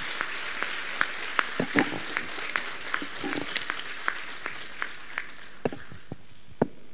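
Audience applauding after a speech. The applause thins to scattered single claps and dies away near the end.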